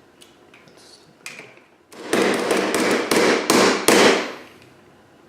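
A hammer striking in a quick run of about ten blows over some two seconds, after a few light taps. This is typical of hammering out a bent part of a damaged fire alarm pull station during its refurbishment.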